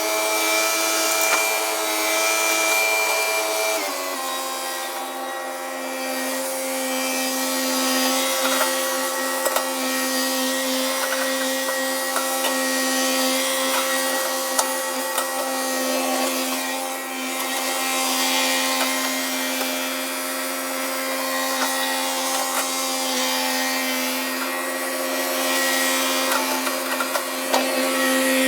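Woodland Mills WG24 PTO stump grinder, driven by a compact diesel tractor, running steadily as its cutter wheel chews into a stump, with a scatter of sharp ticks from wood chips. The machine's pitch steps down slightly about four seconds in, then holds.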